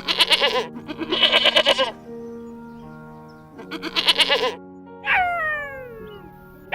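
A goat or sheep bleating three times, each bleat wavering, with a long call falling in pitch near the end. Background music with steady held tones runs underneath.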